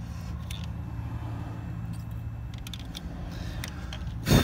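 Small clicks and rustles of hands working a soldered wire splice over a steady low hum, with a loud breath near the end.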